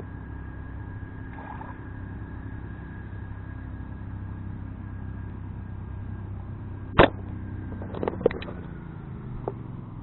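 A steady low motor hum. A single sharp knock comes about seven seconds in, and a few smaller clicks follow about a second later.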